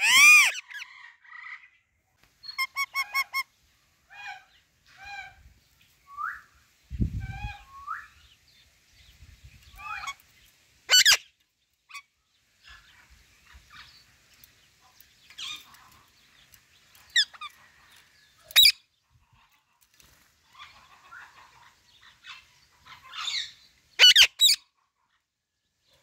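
Female Alexandrine parakeet calling on and off: a loud harsh squawk right at the start, a quick run of five short chirps a few seconds in, loud sharp squawks around the middle and again about two seconds before the end, and softer chattering notes between.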